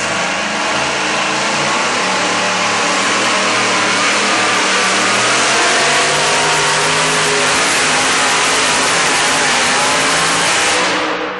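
Supercharged engine of a two-wheel-drive pulling truck running flat out under load as it drags the weight-transfer sled, a loud, steady, unbroken blare.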